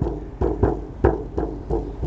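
Shamanic frame drum (buben) beaten in a steady rhythm, about three strokes a second, each stroke a sharp hit over a low boom.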